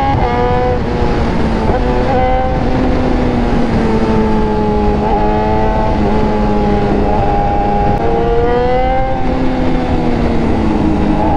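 BMW S1000RR's inline-four engine heard from the rider's seat at cruising speed. Its pitch drops just at the start, then rises and falls a few times with throttle and gear changes, over heavy wind noise.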